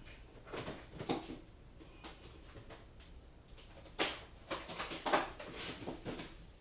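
Irregular knocks, clatter and rustling of someone rummaging through bins and drawers of small electronic parts while searching for a voltage regulator.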